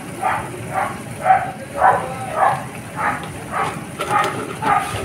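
A dog barking repeatedly, about two short barks a second.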